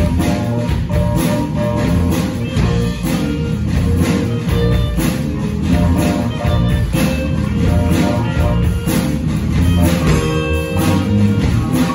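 A live band playing an upbeat funk-jazz tune with a steady beat, guitar prominent over piano, saxophones, trombone and drum kit.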